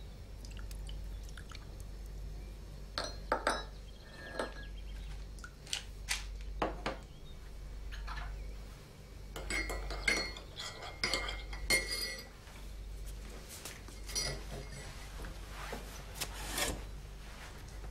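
Breakfast-table clatter: a teaspoon clinking against a china cup and crockery and utensils being handled and set down, as scattered short clinks with a run of ringing clinks about ten seconds in, over a steady low hum.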